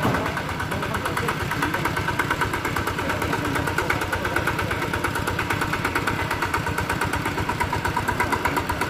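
Single-cylinder diesel engine of a walking tractor idling steadily, with an even, rapid beat.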